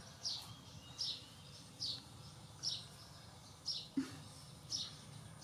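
A bird chirping over and over, a short high note sliding downward about once a second.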